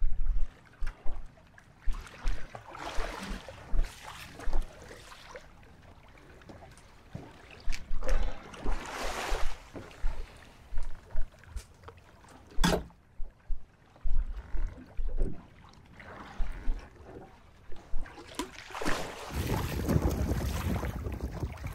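Water splashing at the side of a small boat where a hooked blue shark is held alongside, with wind buffeting the microphone in short gusts. There is a single sharp knock about halfway through, and a louder, steadier wash of water near the end.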